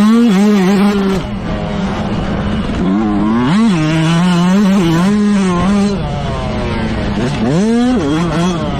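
Motocross bike engine at race throttle, its pitch climbing and dropping as the throttle opens and closes. Near the end it rises sharply in revs.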